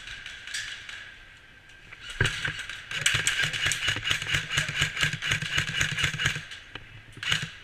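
An airsoft electric gun firing a long rapid burst of about four seconds: the motor and gearbox hum with a fast, even run of shots, starting about two seconds in. A single sharp crack comes near the end.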